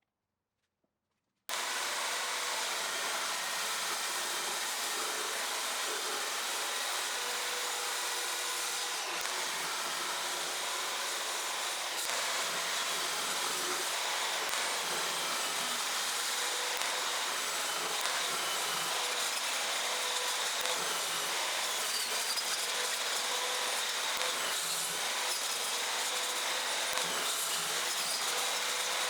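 Electric power saw running steadily and cutting wood, with a steady motor whine. It starts abruptly about a second and a half in.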